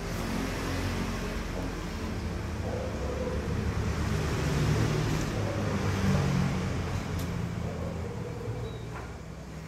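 A steady low motor hum with a hiss above it, swelling a little in the middle and easing off near the end.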